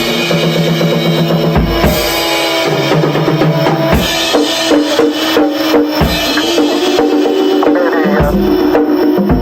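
Drum kit playing, with bass drum and snare hits over held steady tones.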